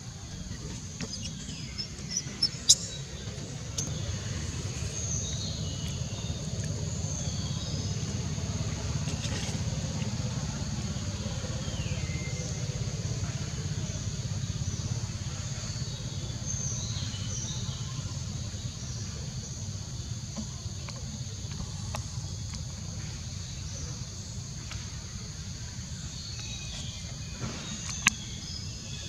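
Outdoor ambience: a steady low rumble with a continuous high insect-like hum and scattered short high chirps. A sharp click comes near the start and another near the end.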